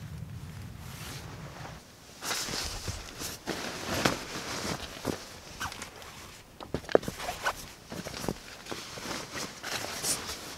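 Nylon tent fabric and a folding egg-crate foam sleeping pad rustling as the pad is laid out and lifted on the tent floor, with scattered light taps and clicks. It starts after a low steady hum stops about two seconds in.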